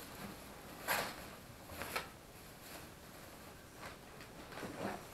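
Thin plastic bag rustling and crinkling as it is handled, in a few short bursts.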